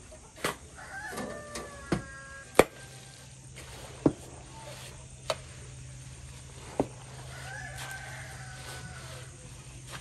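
A rooster crowing twice, once about a second in and again around seven and a half seconds. Over it, sharp knocks of a shovel blade striking a concrete tank as feed is mixed in it, the loudest sounds, about every one to one and a half seconds.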